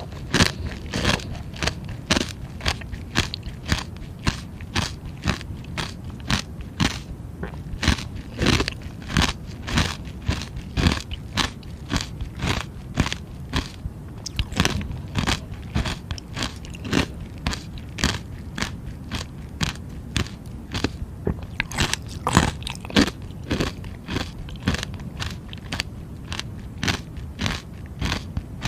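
Close-miked biting and chewing of a hard frozen treat: a steady run of sharp, crackling crunches, several a second, as the frozen pieces break between the teeth.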